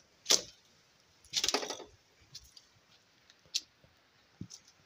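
Handling noise from a handheld phone camera being turned around: a sharp click just after the start, a short rustling scrape about a second and a half in, then a few faint ticks.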